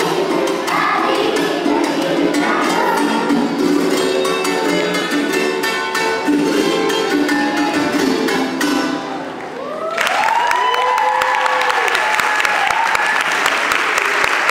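Children's choir singing to a strummed cuatro llanero, the song ending about nine seconds in. Then the audience breaks into applause and cheering.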